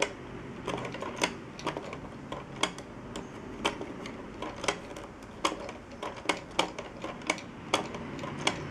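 Hand-cranked LEGO lever mechanism clicking as the crank is turned: sharp plastic clicks of the bricks and parts, about two a second, unevenly spaced.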